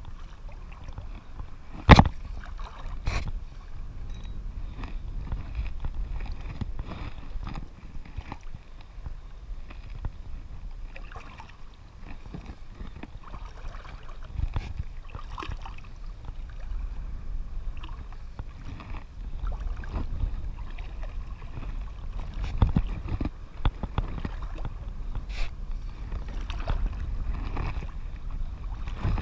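Sea water lapping and sloshing close to the microphone, with a steady low rumble of wind on it. A sharp knock comes about two seconds in, a smaller one a second later, and a few more scattered through.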